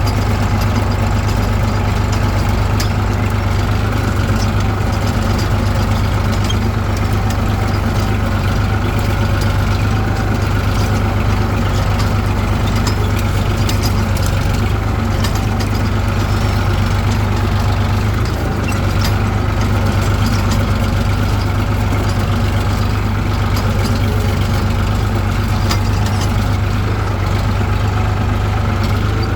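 An Eicher 65 hp tractor's diesel engine running steadily at a constant speed, with a strong low hum.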